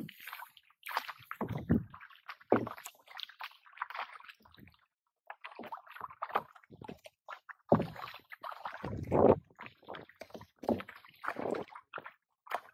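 Water splashing and sloshing from kayak paddle strokes and against the hull, in irregular bursts a second or two apart, with a short lull about five seconds in.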